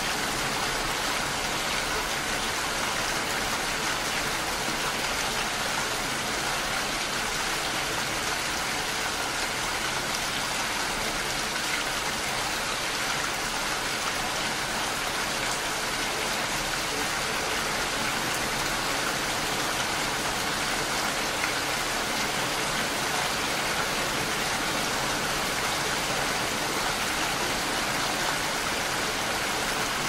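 Steady rain falling, an even hiss of many drops that holds level throughout without letting up.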